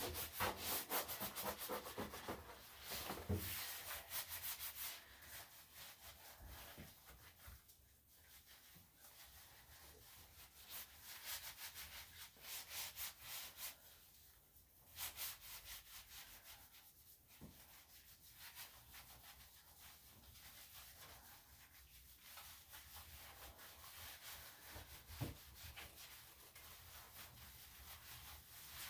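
Hands rubbing shampoo into a wet Yorkshire Terrier/Pomeranian cross's coat: a soft, wet scrubbing in repeated strokes, louder in the first few seconds and then quieter, with occasional firmer rubs.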